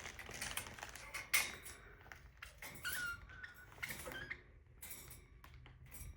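A pet parrot gives one brief, soft squeak about three seconds in, among light clicks and taps from handling.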